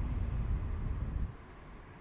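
Low wind rumble and road noise from riding a bicycle on an asphalt bike lane, with a steady hiss above it; the rumble eases off a little past halfway.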